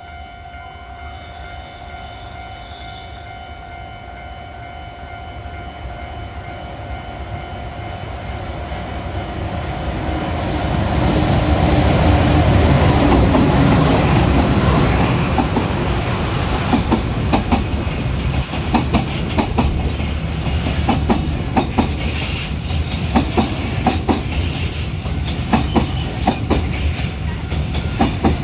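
A level crossing's warning bell rings steadily as a JR Freight EH500 electric locomotive approaches and passes, its rumble rising to a peak about twelve seconds in. After it, the wheels of the container wagons clatter steadily over the rail joints in a regular clickety-clack.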